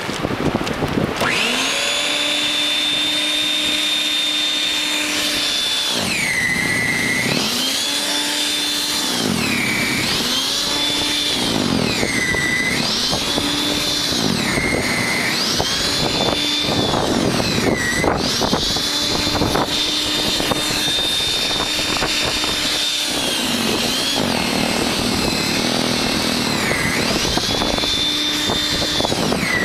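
WEN 5662 13.5-amp electric snow thrower's motor spinning up about a second in, then running with a high whine whose pitch drops again and again and recovers as it labours under the load of deep snow.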